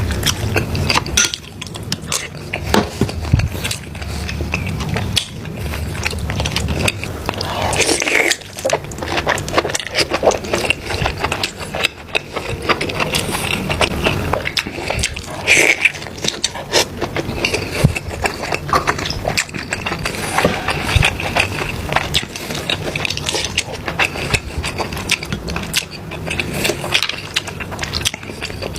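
Crab being eaten close to the microphone: shells cracking and crunching in a dense run of irregular clicks, with chewing and sucking.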